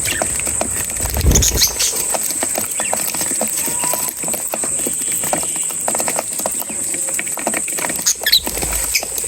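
Birds feeding: a busy, continuous patter of quick pecking and scratching clicks, with a few short high chirps about a second and a half in and again near the end.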